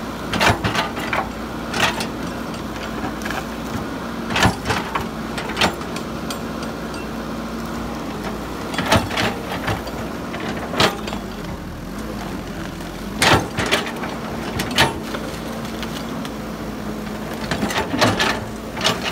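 Caterpillar hydraulic excavator's engine running steadily under digging load, with irregular sharp knocks and cracks as the bucket tears into soil and tree roots.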